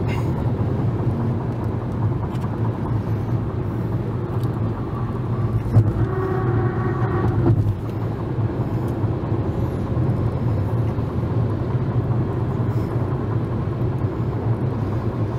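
Steady road and engine rumble inside a moving car's cabin at highway speed. About six seconds in there is a short knock, then a brief steady hum lasting about a second and a half.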